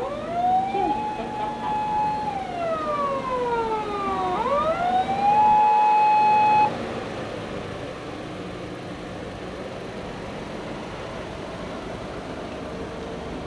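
Electronic wail siren of a 2010 Toyota HiAce High-Medic ambulance, driven by its siren amplifier and speaker. It rises, holds a high note, slides down, rises again and holds, then cuts off suddenly about halfway through. A steady, lower background sound continues after that.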